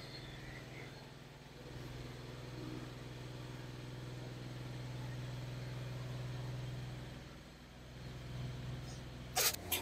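Air compressor on a fuel and lube truck running with a steady low hum while the fresh oil tanks are being pressurised. Two short sharp sounds come near the end.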